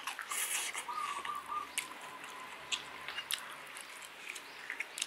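Close-up chewing of fried rice, with scattered light clicks of a metal spoon and fork against the plate. A bird calls briefly about a second in.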